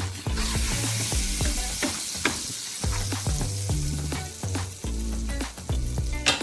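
Butter, garlic and onion sizzling in a hot pan. The sizzle swells about a third of a second in and eases off over the next few seconds, with a sharp tap near the end. Background music plays throughout.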